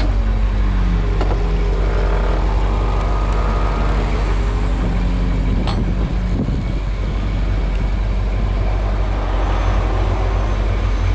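1960 Ford Thunderbird's power convertible top mechanism lowering the top into the trunk: a motor whine that drops in pitch about half a second in and then holds steady until about six seconds, with a sharp click at the start and another near the six-second mark, over the steady hum of the idling engine. A fainter, higher whine comes in near the end.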